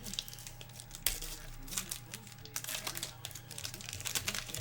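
Foil baseball-card pack wrapper crinkling and cards being handled and flipped by hand: a run of irregular rustles and small clicks, with a sharper snap about a second in.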